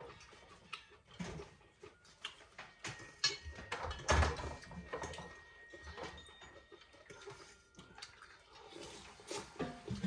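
Scattered light clicks and knocks, with a louder knock and clatter about four seconds in.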